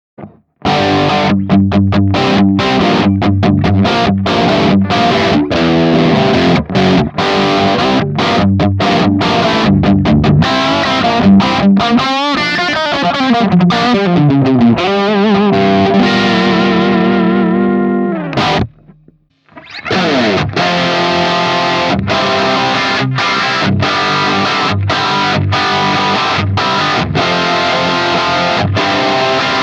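Distorted electric guitar riff played through a digital amp modeler, choppy with many short stops, with sliding and bending pitches partway through. It breaks off briefly about two thirds of the way in, then a second take of the riff starts with less high treble.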